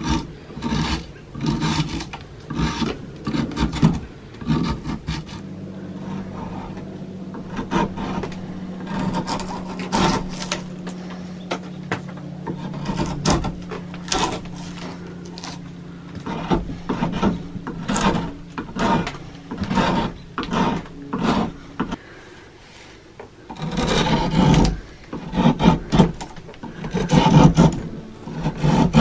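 A homemade draw knife, made from a saw blade, shaving bark off a dried aspen branch in repeated short, irregular scraping strokes. A steady low hum runs underneath through the middle stretch.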